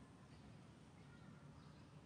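Near silence: faint forest ambience with a few soft, brief bird chirps.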